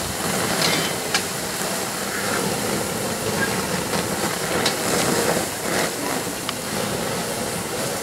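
Steady hissing of steam off the hot coke-and-taconite charge just dumped from the blast furnace's drop bottom, with a few small clicks of lumps settling.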